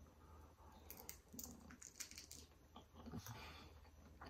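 Faint crunching and chewing of a crispy, Flamin' Hot Cheetos-crusted fried prawn, with a few soft, irregular crunches.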